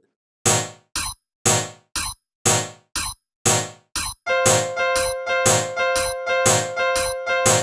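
Piano-like electronic keyboard notes struck about twice a second, alternating long and short. From about four seconds in they give way to a denser, quicker run of notes over a held tone.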